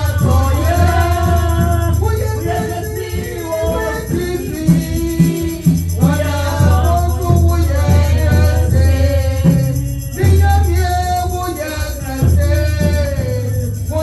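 Church worship music: voices singing over a band with a heavy bass line and shaken hand percussion.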